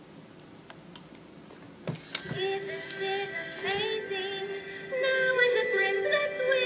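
Talking Princess Twilight Sparkle toy playing a synthesized song with a sung melody through its small built-in speaker. The song starts about two seconds in, after a few faint clicks, and grows louder near the end.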